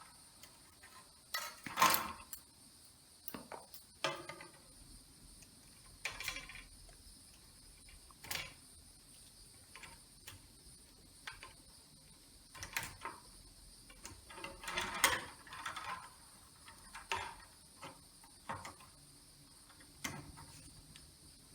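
Scattered clicks, scrapes and rustles of 12-gauge copper ground wires being handled and joined at an outlet box, with faint steady chirring of crickets behind.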